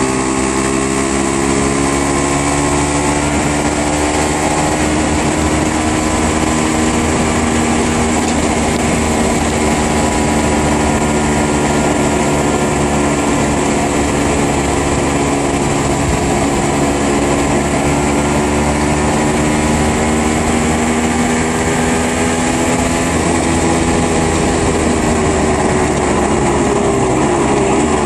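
Aprilia RS125's single-cylinder two-stroke engine running at a steady cruise under a rush of wind noise. Its pitch falls near the end as the bike slows.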